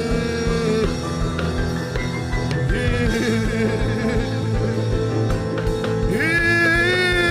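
Live worship music: a man singing long, drawn-out notes over instrumental accompaniment, holding one note from about six seconds in.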